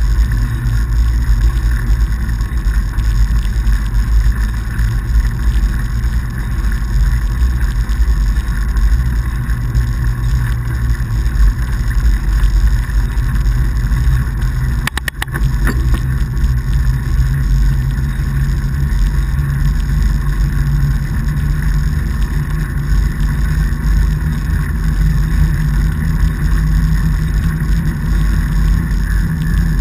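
Steady low rumble of a fatbike rolling along a packed-snow road, with a brief clatter about halfway through.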